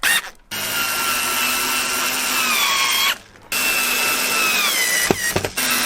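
Power drill-driver driving screws in a few runs: a whine that sags in pitch as each screw tightens, pausing briefly about three seconds in. A couple of sharp knocks come just after five seconds.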